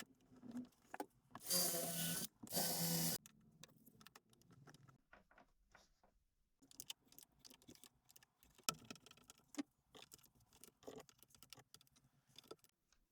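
Power drill running in two short bursts, a steady motor whine, while screw holes are piloted and countersunk for a perspex panel; small clicks and knocks of parts and tools being handled follow.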